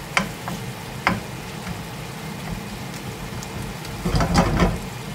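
Mushrooms, onion and white wine sizzling in a pan on high heat as the wine reduces. A few sharp clicks and knocks break through the sizzle, with a busier cluster about four seconds in.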